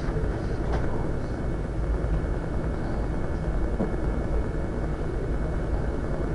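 Room tone: a steady low hum and hiss, with a few faint soft clicks.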